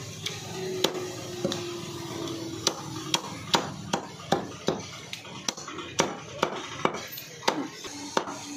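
Heavy steel cleaver chopping chicken pieces on a wooden stump chopping block. A few spaced chops come first, then a quicker run of sharp chops at about two to three a second.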